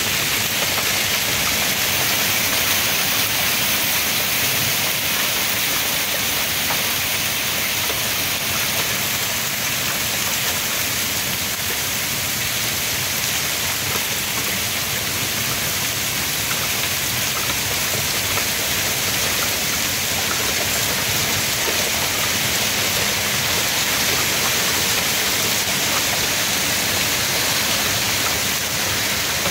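Heavy wind-driven rain pouring down in a severe storm, with water sheeting off the roof edge; a steady, dense hiss that doesn't let up.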